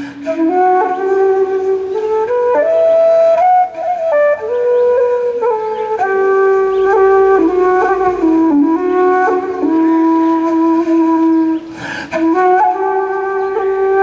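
Live instrumental music: a single melody on a flute-like wind instrument, moving in held notes up and down, with a short break about twelve seconds in before the line resumes.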